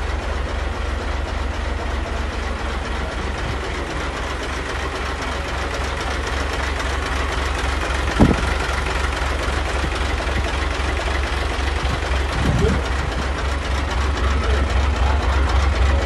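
Hino 500 dump truck's diesel engine idling with a steady low throb, growing louder toward the end. A single short knock sounds about eight seconds in.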